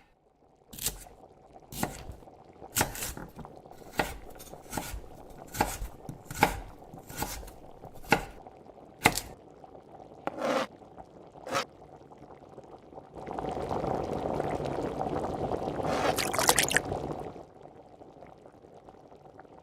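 A knife chopping on a cutting board in single strokes, about one a second. Then liquid is poured steadily for about four seconds.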